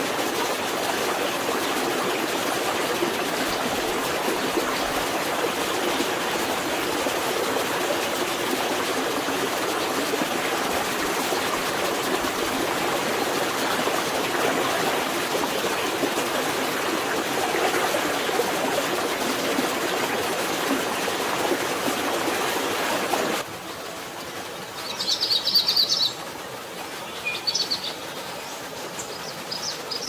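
Steady rush of a flowing rainforest stream, which cuts off suddenly about three-quarters of the way through to quieter forest background with a few short, high bird chirps.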